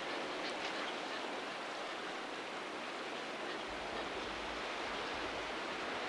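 Steady, even wash of sea surf, with a brief low rumble near the middle.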